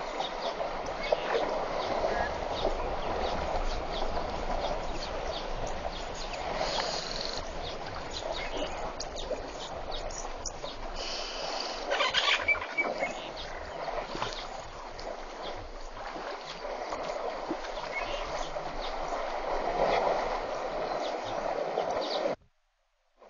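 Water splashing and sloshing as elephants wade and play in a waterhole, with irregular louder splashes; the sound cuts off suddenly near the end.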